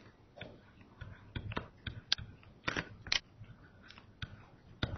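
Pen stylus tapping and scratching on a tablet PC screen during handwriting: a string of faint, irregular clicks.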